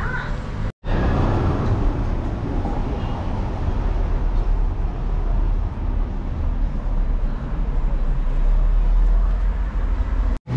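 Steady, loud rumbling background noise with no clear voices or tune, heaviest in the deep range; it cuts out abruptly for a moment just after the start and again near the end.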